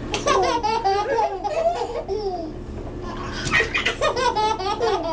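Babies laughing at each other in high-pitched giggles, in two runs of rapid bursts with a short lull between.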